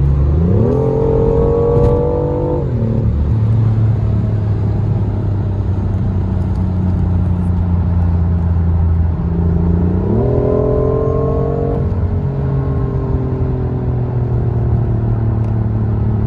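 BMW i8 Roadster's three-cylinder turbo petrol engine running at speed, with its pitch rising twice as the car accelerates hard, each rise lasting about two seconds; the first cuts off sharply and the second falls away slowly, with a steady engine drone in between.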